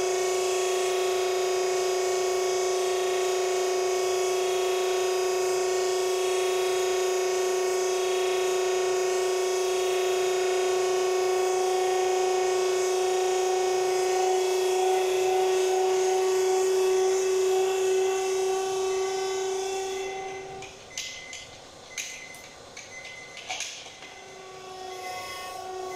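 Hydraulic press's one-minute timer alarm sounding as a steady buzzing tone, signalling that the pressing time is finished; it cuts out about 20 seconds in. Several sharp clicks and knocks follow near the end as the press controls are worked.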